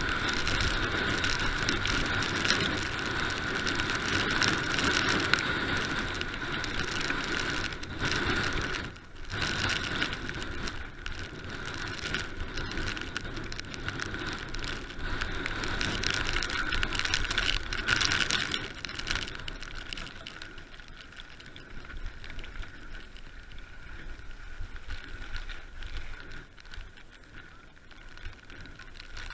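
Mountain bike ridden fast down a wet gravel track: a continuous rough rattle of tyres and bike over the stones. It dips briefly about nine seconds in and gets quieter after about nineteen seconds.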